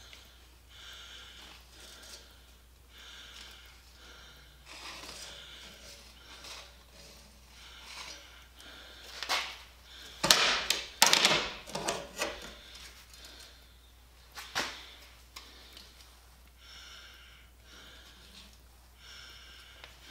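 Steel tape measure and a welded steel wheel rim being handled: the tape blade rattles and clicks against the rim and its case, with a burst of louder clicks and knocks about ten to twelve seconds in and one more a couple of seconds later.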